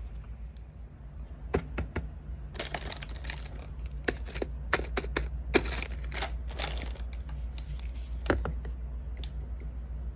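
Plastic packaging being handled: a zip-lock plastic bag crinkling and hard plastic pieces clicking in a run of sharp crackles and clicks, densest in the middle, over a steady low hum.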